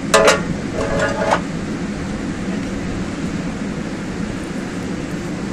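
LiAZ-677 city bus engine idling with a steady low rumble. Near the start, two short, loud sounds with a pitched note cut in about a second apart.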